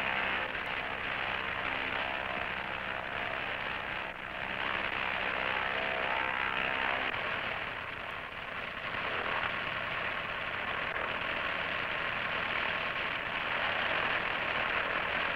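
Light single-engine airplane's engine and propeller running steadily, heard from inside the cabin on a landing approach.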